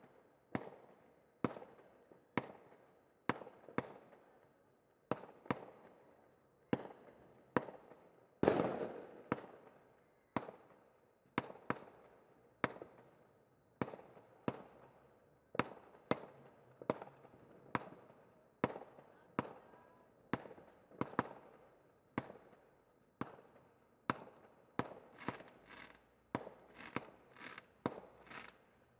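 Fireworks going off in a steady series of sharp bangs, about one a second, each trailing off in an echo. A louder bang comes about eight seconds in, and the bangs come quicker near the end.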